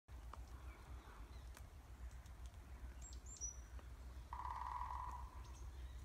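Woodpecker drumming on a tree: one rapid roll of strikes, lasting under a second a little past the middle, fading at the end. A few high, thin bird chirps come just before it, over a low rumble.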